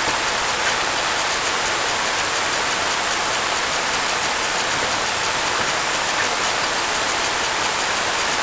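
Steady, even rushing hiss of a storm around a vehicle, with no breaks or single events.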